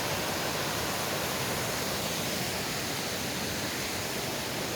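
Small mountain waterfall rushing: a steady, even sound of falling water.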